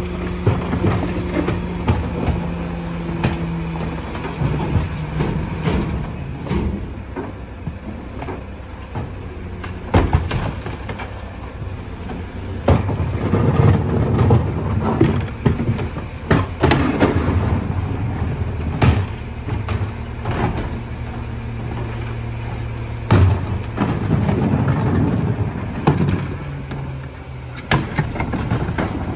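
Split-body rear-loader garbage truck's diesel engine running while its hydraulic cart tippers lift and dump wheeled bins, with many sharp bangs of plastic carts knocking against the metal tippers and hopper. A steady low hum from the truck rises in pitch for a few seconds near the start and again partway through.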